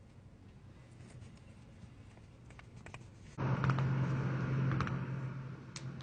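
Scattered small, sharp clicks and pops of joints cracking. About three and a half seconds in, a steady low hum and hiss come in abruptly, with a few more clicks over them.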